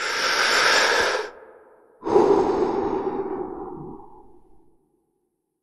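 Two breathy exhales, like a puff of vapour being blown out, for the smoke-logo intro: the first lasts just over a second, the second starts sharply about two seconds in and trails off over nearly three seconds.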